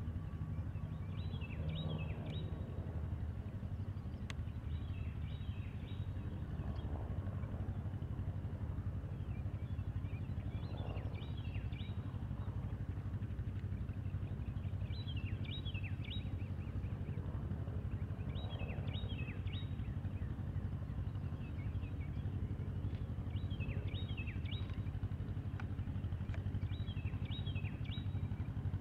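Mooney M20 single-engine plane's piston engine droning steadily at low power on its landing approach. A songbird sings short phrases every three to four seconds over it.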